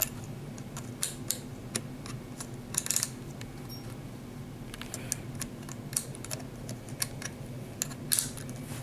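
Scattered light clicks and taps of a small plastic-and-metal instrument being handled on a table, with short clatters about three seconds in and again near the end.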